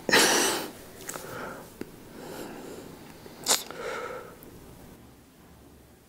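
A young man sniffing and breathing unevenly while crying: a loud, sharp sniff at the start, softer breaths and sniffs after it, and another sharp sniff about three and a half seconds in.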